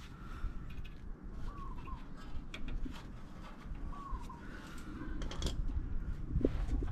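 Short bird calls, each a brief rising-then-falling note, about a second and a half in and again about four seconds in. Scattered light clicks and taps of hand tools on metal, and a low background rumble, come in between.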